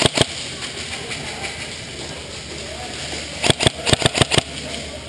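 Airsoft gunfire: two or three sharp cracks at the start, then a rapid string of about eight shots within a second past the middle.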